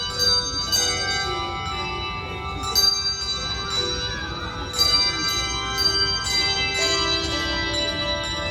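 A bell choir playing handbells: several bells struck together in chords, each note ringing on while the next are struck, with stronger strikes about 1, 3 and 5 seconds in.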